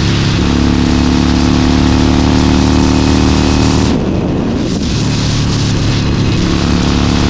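Harley-Davidson Forty-Eight's air-cooled 1200 cc V-twin running steadily at highway speed. About four seconds in, the sound briefly dips, then it settles back to a steady pull.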